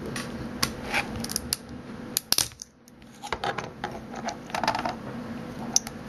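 Small clicks, taps and scrapes as a freshly printed ABS cup and its support base are pried off the Dimension 3D printer's plastic modeling tray, with a sharp click about two seconds in and a run of ticking and scraping near the end.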